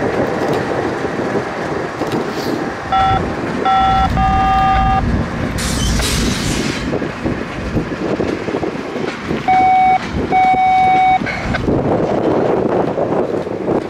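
A locomotive air horn sounds in two groups of blasts over a steady rumble: two short blasts and a longer one about three seconds in, then a short and a longer blast around ten seconds in.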